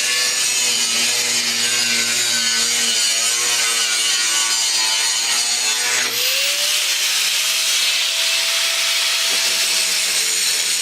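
Angle grinder cutting the metal exhaust: a dense high hiss over the motor's steady hum. About six seconds in, the motor's pitch rises as the disc comes off the cut and spins free.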